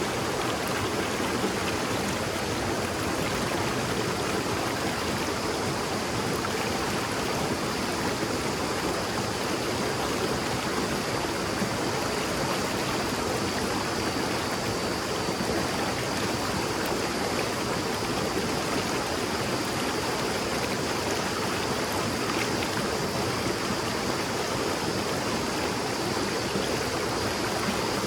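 Shallow stream babbling: a steady, unbroken rush of running water.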